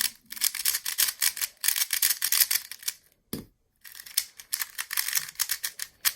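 A 3x3 speedcube being turned fast in the hands: a rapid clatter of plastic layer turns clicking. It pauses briefly just past three seconds in, with one soft low knock, then the turning resumes.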